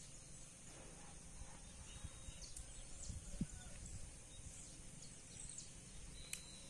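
Faint, scattered high chirps of saffron finches (canário-da-terra) over quiet rural background noise.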